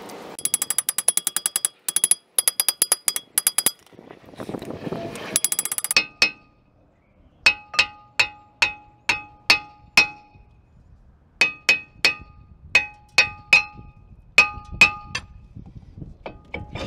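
Hammer blows on a rust-seized front brake rotor, knocking it loose from the hub: about eighteen sharp strikes in two runs, two or three a second, each leaving the rotor ringing. Before them come fast runs of rapid metallic clicking.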